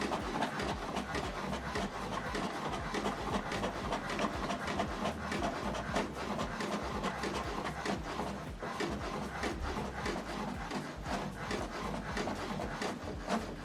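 HP DeskJet 4220e inkjet printer printing the first side of a double-sided job: the print carriage shuttling back and forth, a dense run of clicks over a steady low motor hum.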